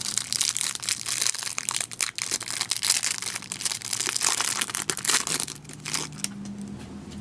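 Crinkling and crackling of plastic wrapping handled in the hands while trading cards are taken out of their pack. It keeps up steadily and dies away about six seconds in.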